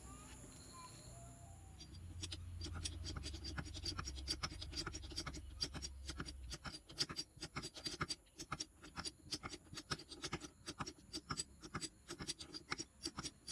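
Hand-pumped hydraulic bottle jack being worked, its pump plunger and handle socket clicking in quick strokes as the ram rises. The clicking gets denser and louder about halfway through, after a low rumble in the first few seconds.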